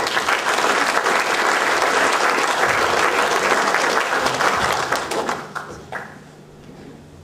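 Audience applauding, dense clapping that fades out about five to six seconds in.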